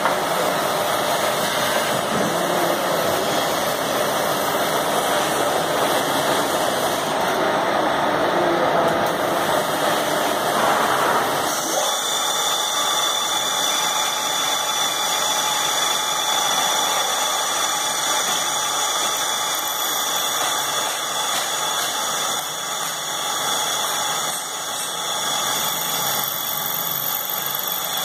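Special-purpose linear drilling machine running, with steady, loud motor and machining noise. About 11 seconds in the sound changes suddenly: the broad grinding noise drops away and a steady high-pitched whine from the running spindles and motors remains.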